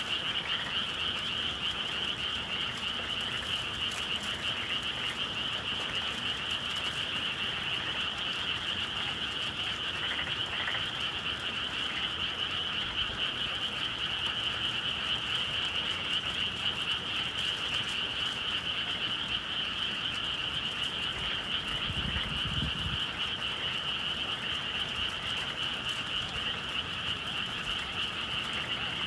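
Dense chorus of many frogs calling at once in a spring evening countryside, an unbroken high-pitched trilling wash with no pauses.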